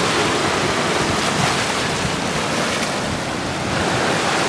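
Steady rush of ocean surf on a rocky shore, with wind on the microphone.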